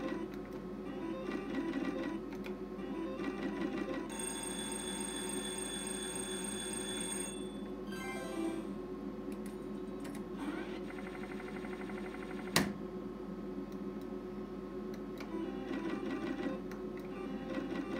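Sizzling Hot slot machine's electronic game sounds: a fast, even, rhythmic spinning-reel sound. About four seconds in, a chime of several held tones marks a line win. A rapid ticking run follows as the win counts up, with a single sharp click just after it.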